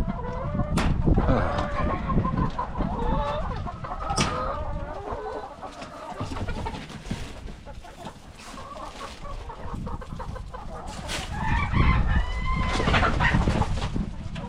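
A flock of chickens clucking and calling, many short overlapping calls that come thickest in the first few seconds and again near the end.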